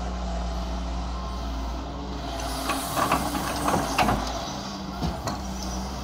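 Doosan DX140W wheeled excavator's diesel engine running steadily under load as the machine swings and dumps a bucket of soil into a tractor trolley. A clatter of dirt and stones landing in the trolley bed comes from about two and a half to four seconds in, with a few more knocks a second later.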